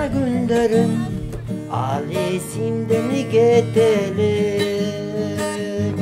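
Background music: a melody line moving over sustained low chords.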